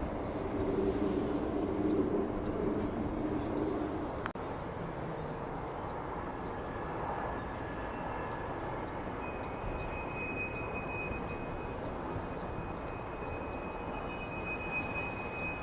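Distant diesel locomotive engine running at idle, a low steady drone that stops abruptly about four seconds in. Then steady outdoor background noise with a faint high-pitched whine and a few bird chirps.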